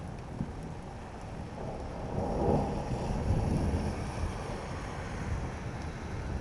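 Steady rain with a roll of thunder that builds about two seconds in and rumbles away over the next few seconds.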